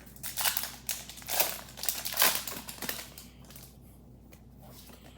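Foil Pokémon booster pack wrapper being torn open and crinkled: a run of crackly rustles lasting about three seconds.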